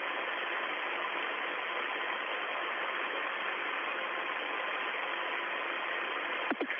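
Steady hiss of the Soyuz capsule's open air-to-ground radio channel, with a faint steady tone under it and a short click near the end.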